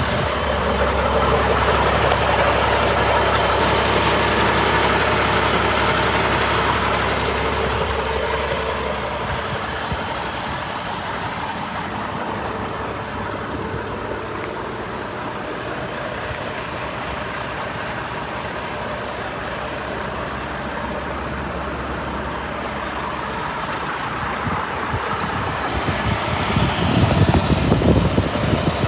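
Scania P92M fire engine's nine-litre six-cylinder diesel idling steadily, louder for the first several seconds, and with some low rumbling buffets near the end.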